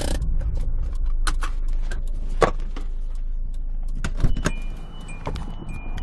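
Car coming to a stop, heard from inside the cabin: a low rumble dies down about four seconds in, with several sharp clicks and rattles along the way. In the second half the car's warning chime starts beeping repeatedly.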